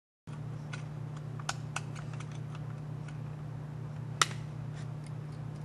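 Small scattered clicks and taps of plastic toner-cartridge parts and a small screwdriver being handled, one louder click about four seconds in, over a steady low hum.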